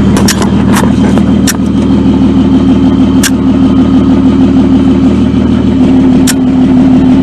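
Truck engine running steadily, with a handful of sharp metallic clicks or clanks over it.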